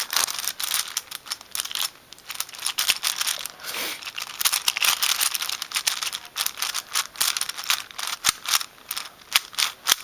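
A 5x5 Rubik's cube being turned by hand: a fast, irregular run of plastic clicks and clacks as its layers are twisted one after another.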